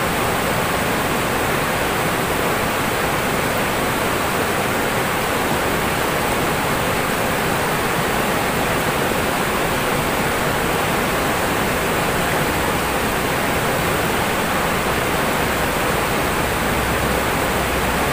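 Fast river water rushing over rocks in shallow rapids, a steady unbroken rush.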